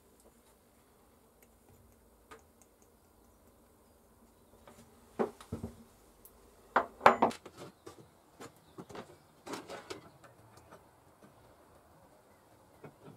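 A few faint scratches from a steel pick scraping rust off a cast-iron hand plane part. Then, from about five seconds in, a cluster of knocks and metallic clatter as tools and metal parts are handled on a wooden workbench, loudest about seven seconds in.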